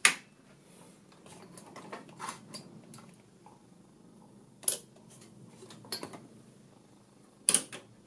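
A handful of sharp clicks and taps from test probes and leads being handled against a tachometer indicator's wiring on a workbench. The clicks are a second or more apart, with a pair near the end, over a faint background.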